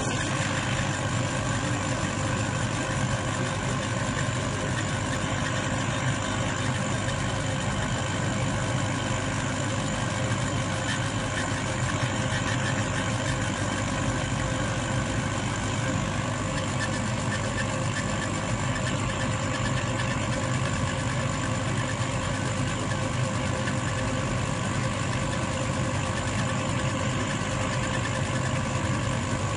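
Laser engraving machine running: a steady machine hum with several steady tones over a constant whirr, unchanging throughout.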